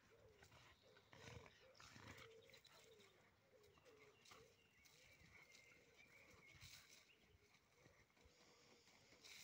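Dogs play-fighting, with faint, repeated short growls and grumbles and scuffling in the dirt.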